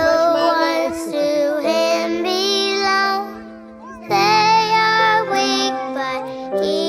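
Music: a song with a child singing the melody over steady instrumental chords.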